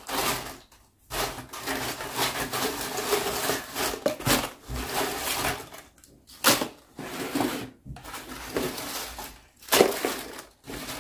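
Crisp homemade potato chips rustling and crackling as handfuls are scooped from a baking tray and dropped into a plastic storage box, in irregular bursts with short pauses and a couple of louder crunches.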